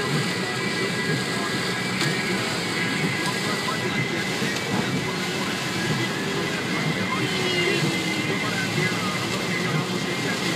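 Heavy rain on a moving car, heard from inside the cabin: a steady hiss of rain and tyre spray on a waterlogged road.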